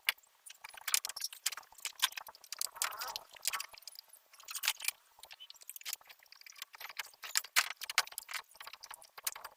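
Irregular light metallic clicking and clattering, like hand tools and small metal parts being handled during the van's dismantling.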